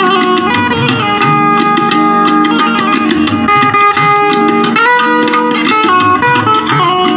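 Indian banjo (bulbul tarang) played through a Stranger C15 amplifier. The strings are strummed steadily while the melody steps from note to note on the keys.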